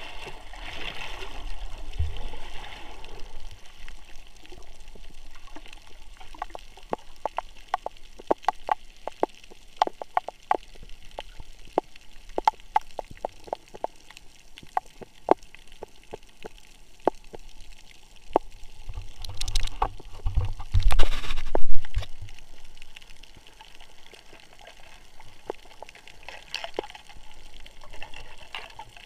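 Underwater sound through an action camera's waterproof housing: muffled water noise with many short, sharp clicks through the middle, and a loud rush of moving water about twenty seconds in.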